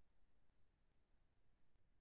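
Near silence: faint room tone.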